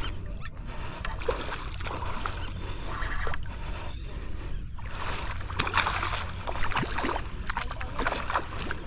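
Water splashing and sloshing in irregular bursts, busiest a little past the middle, over a steady low rumble.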